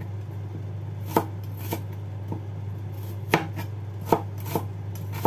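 Cleaver-style kitchen knife chopping shallots on a cutting board: about six or seven separate, unevenly spaced chops.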